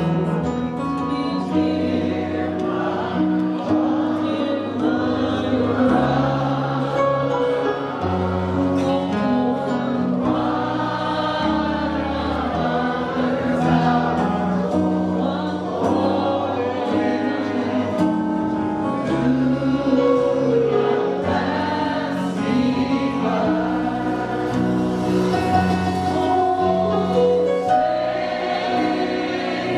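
Gospel choir singing a slow worship song with instruments holding sustained chords underneath.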